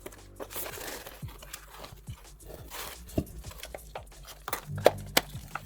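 Computer hardware and packaging being handled: scattered light clicks and taps, the sharpest about three and five seconds in, with brief soft rustling or sliding sounds, over a faint low music bed.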